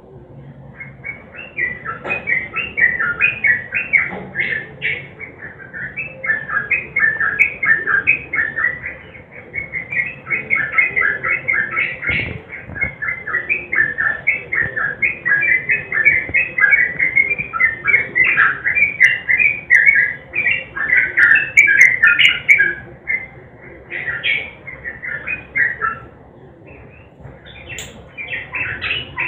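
Sooty-headed bulbul (trucukan) singing a long, fast, unbroken run of short chattering notes, the 'gacor' ropel style of song used to coax other caged birds into singing. The song breaks off briefly about 26 seconds in and resumes near the end.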